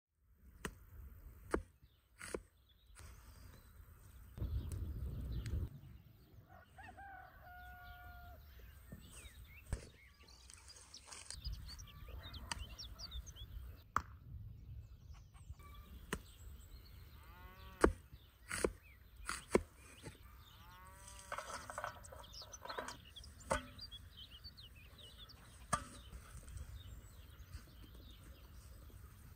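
Meat cleaver chopping through a goat's rib rack on a wooden stump block: sharp single chops every second or few. Chickens cluck and a rooster crows in the background.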